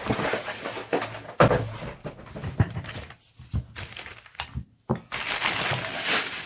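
Packing materials being handled and shifted: irregular crinkling, crumpling and scraping in uneven bursts, louder and denser near the end.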